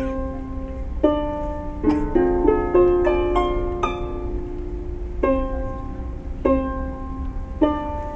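A solo plucked string instrument with a harp-like sound. Chords are plucked about every second and a quarter and left to ring, with a quick flurry of notes in the middle.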